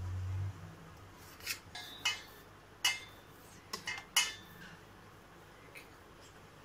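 Stainless steel plate clinking several times with a short metallic ring as besan dough is cut and rolled on it. Around six light clinks come between about a second and a half and four seconds in.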